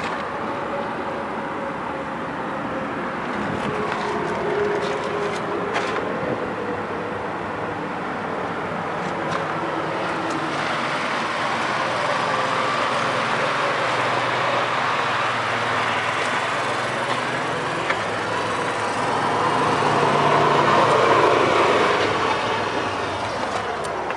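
Caterpillar D8N crawler tractor's diesel engine running steadily, with mechanical noise throughout; it grows louder toward about 21 seconds in, then eases off.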